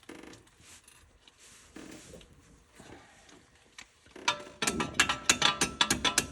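Tools working a rusted cotter pin out of a tie rod end's nut: light metal scrapes and clicks at first, then from about four seconds in a fast run of loud, sharp metallic clicks and scrapes, several a second.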